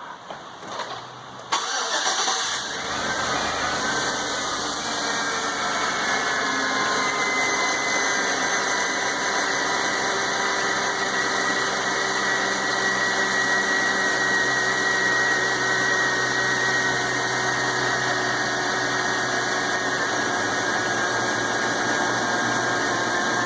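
A 2004 Chevrolet Avalanche's V8 cranks and starts about a second and a half in, runs a little faster for a moment, then settles into a steady idle. It is running without misfires after two new lifters were fitted on cylinder 7.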